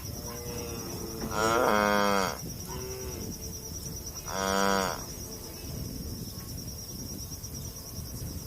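Cow mooing: two loud moos, about a second and about four seconds in, with fainter calls between them. A steady high-pitched trill runs underneath.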